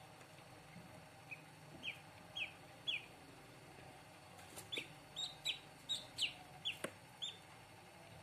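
Newly hatched ducklings peeping: short, high calls that drop in pitch, a few spaced ones at first, then a quicker run of about ten in the middle.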